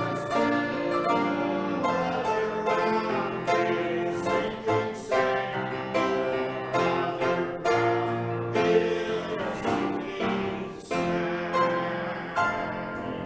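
A hymn with singing and piano accompaniment, its last phrases growing softer toward the end.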